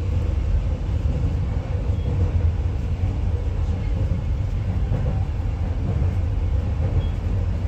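Steady low rumble of a moving passenger train heard from inside the carriage, wheels running on the rails, with a faint steady hum.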